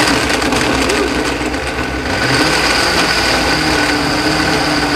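Countertop blender running steadily, puréeing a thick butternut squash soup, its motor giving a steady whine over the churning of the contents.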